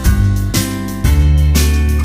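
Background music: upbeat acoustic guitar with a steady bass line, the chords changing about once a second.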